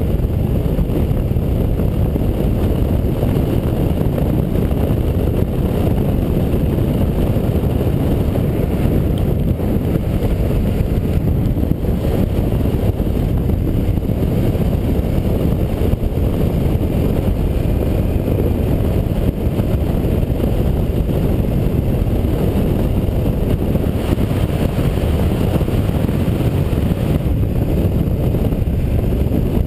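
Steady rush of wind on the camera microphone mixed with the drone of a KTM 990's V-twin engine at a constant cruising speed.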